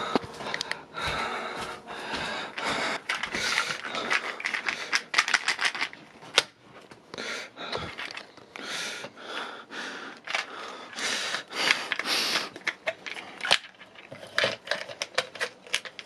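Plastic pill bottle of tablets being handled and shaken, a dense run of rattling clicks, with the cap clicking as it is worked open near the end.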